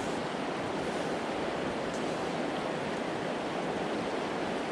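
Fast-flowing river rushing steadily over rocks.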